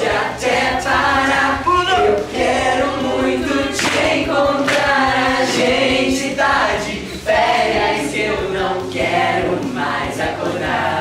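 Several voices singing an upbeat children's pop song together over a backing track.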